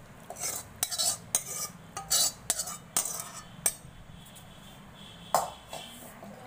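Steel spoon scraping and clinking against a stainless-steel pan as thick gravy is scraped out onto potato pieces in a steel bowl: a dozen or so irregular clinks and scrapes, the sharpest about two seconds and five seconds in.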